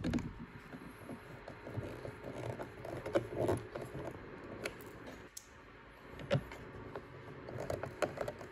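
Hand screwdriver turning screws into a 3D-printed plastic mount: irregular scraping and handling noise with scattered small clicks and knocks of metal on plastic, the sharpest about six seconds in.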